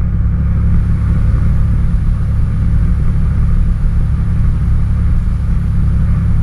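Cessna 206 Stationair's six-cylinder piston engine and propeller running steadily at low taxi power, heard from inside the cockpit as a loud, even drone.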